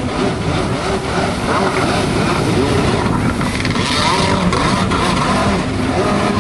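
Freestyle jet ski's carbureted engine running and revving, its pitch rising and falling as the rider works the throttle.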